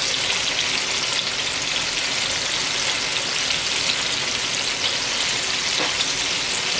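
Chicken breasts frying in a stainless steel sauté pan: a steady sizzling hiss with occasional small pops.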